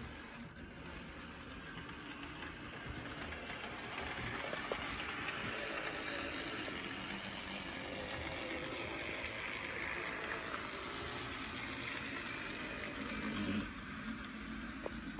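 HO scale Rivarossi IHC 2-8-2 Mikado model steam locomotive running along the track, a steady whir of its motor and wheels on the rails. It grows louder about four seconds in as it comes close, and drops off suddenly near the end.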